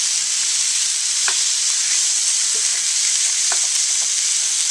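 Ground beef, onions and green bell peppers sizzling steadily in a hot skillet while a wooden spoon stirs and breaks up the meat, with a few light knocks of the spoon against the pan.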